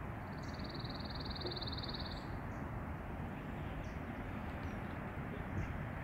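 A small songbird's rapid, even, high-pitched trill lasting about two seconds, over a steady low rumble of background noise.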